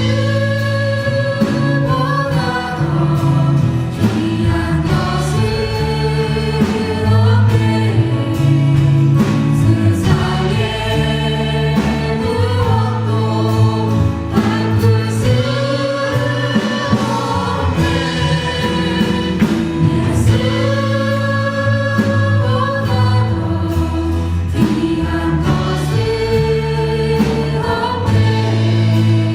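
Worship band and praise team singing a Korean gospel song together, voices over a steady band accompaniment with bass and drums.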